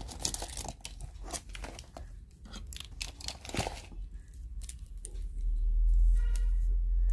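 Crinkling and rustling of a clear plastic pencil pouch and plastic-wrapped stationery being handled, with many small clicks and taps of pens and plastic. About five seconds in, a deep low rumble comes in and stays as the loudest sound.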